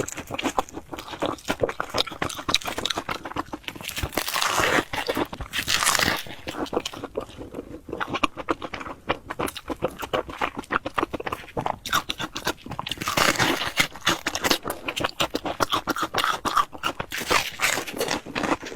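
Close-up crunching and chewing of crisp fried bread, with many sharp, irregular crunches and louder bites every few seconds.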